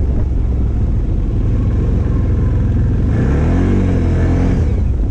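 Stels Guepard 850 ATV engine running under way, with a rev that climbs and falls back about three seconds in.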